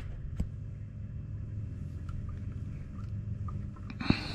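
Sharp metal clicks of a wrench end pushing retaining pins into a Power Pole blade bracket. There is a loud click at the start, a smaller one about half a second later, and a ringing metallic clink near the end, all over a steady low rumble.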